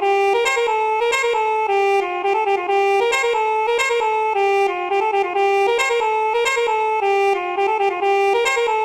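Telolet (basuri) bus air-horn sample playing a melody, stepping between short quick notes and notes held for about half a second.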